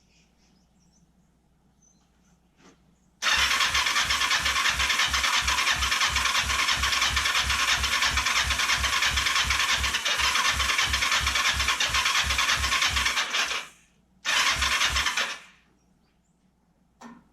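Kawasaki Ninja 500 parallel-twin engine being cranked by its electric starter for about ten seconds, with an even pulse from the compression strokes, then a second short burst of cranking. It never fires: the engine cranks but won't start despite having spark and compression.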